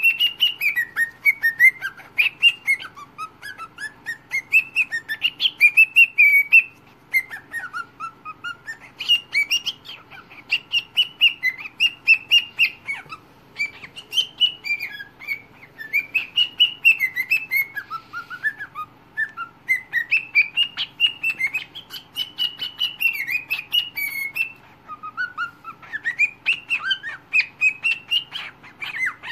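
Cockatiel singing a long warbling whistled song: quick chirpy notes sliding up and down in pitch, phrase after phrase, with a few brief pauses.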